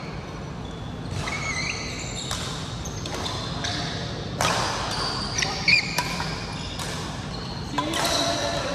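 Badminton rally: a string of sharp racket hits on the shuttlecock and short high squeaks of court shoes on the floor, ringing in a large hall.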